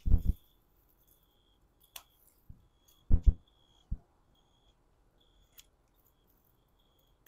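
Short snips and knocks from bitter gourds being cut by hand off the vine: a cluster at the very start, two more about three seconds in, and a few lighter ticks between. Faint, repeated high chirps sound in the background.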